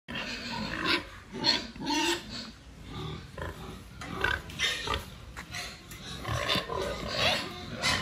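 A large pig grunting in short, irregular bursts.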